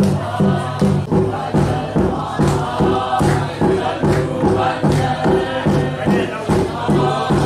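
Congregation singing a hymn together over a quick steady beat of hand-clapping, about three beats a second.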